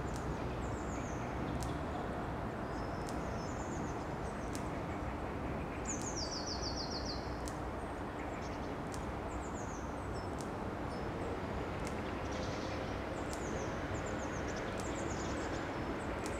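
Steady outdoor background noise with small songbirds calling in short high chirps throughout. About six seconds in, one bird gives a falling series of quick notes lasting a second or so.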